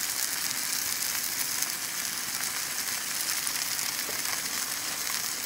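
Steak searing in hot oil in a pan on a camp stove: a steady sizzle.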